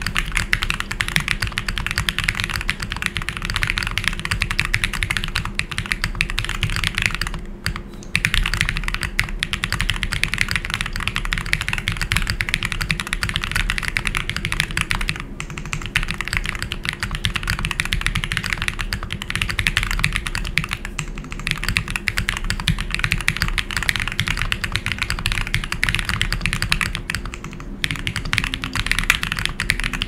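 Fast, continuous typing on a Jris65 mechanical keyboard fitted with Ktechs S2 V2 Snow tactile switches, a brass plate, PE and case foam, a gasket mount and GMK doubleshot keycaps: a loud, dense stream of key clacks. It pauses briefly twice, about a third of the way in and near the end.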